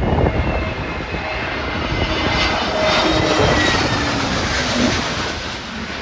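Twin-jet airliner on final approach passing low overhead, its engines' roar and whine falling in pitch as it goes by.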